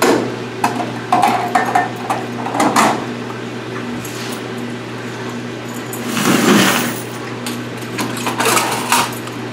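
Metallic clicks and rattles from the coin box and lock of a coin-operated top-load washer being handled and unlocked, with a louder clatter about six seconds in, over a steady low hum.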